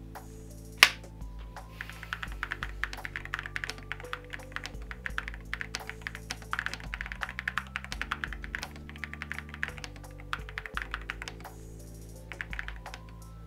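Typing on an AKKO 5075B Plus Air mechanical keyboard with Akko V3 Piano Pro linear switches: one sharp click about a second in, then a fast run of keystrokes for several seconds, a pause, and a few more keystrokes near the end. Background music plays throughout.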